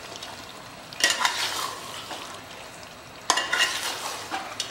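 Flat metal spatula stirring and scraping thick mutton curry masala in a metal pot while it sizzles on the stove. Two sharp strokes come about a second in and past three seconds in, each trailing off into the sizzle. The meat is at the bhuna stage, frying down in its masala until well browned.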